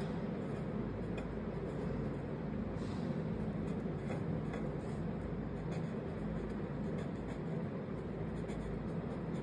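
A steady low background rumble, with faint, brief scratches of a felt-tip marker writing on card every second or so.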